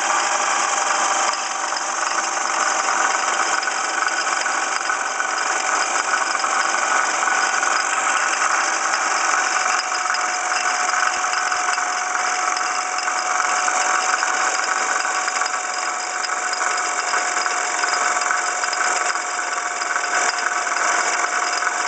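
1995 Ford Escort engine idling steadily with a rattle from the passenger side of the engine, which turned out to be a water pump pulley damaged when the passenger side fender was hit.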